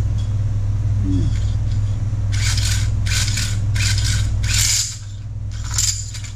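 Starter rope of a David Bradley 360 chainsaw's recoil starter being pulled out by hand, about six short pulls in quick succession over a steady low hum. Each pull is short because the recoil spring has not held.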